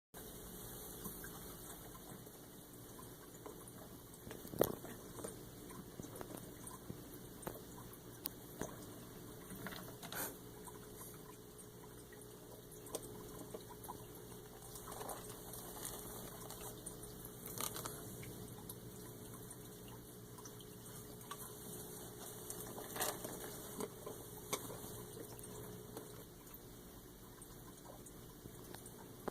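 Faint water in a turtle's tank, a steady trickle and lapping, broken by a handful of sharp clicks and taps.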